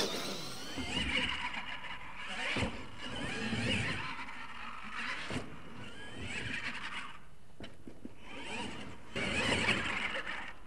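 Radio-controlled monster truck's electric motor and gears whining, the pitch rising and falling with the throttle, with a few sharp knocks as it hits ramps and lands. The whine is loudest near the end as the truck takes a jump.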